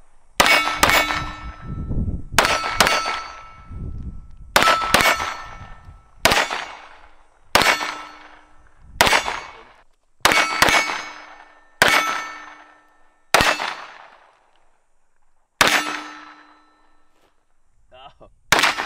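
Compensated Taran Tactical Sand Viper pistol firing about fourteen shots, a few in quick pairs and most singly a second or so apart. Each shot is answered by the ringing of a struck steel target. A pause of about three seconds comes before a final quick pair near the end.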